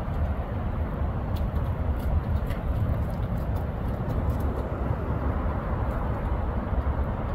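Steady low outdoor background rumble and hiss, with a few faint ticks.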